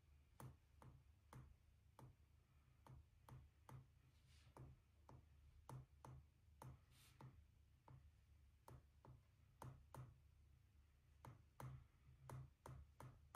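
Faint, irregular taps of a stylus tip on a tablet's glass screen as short strokes are drawn, two or three clicks a second.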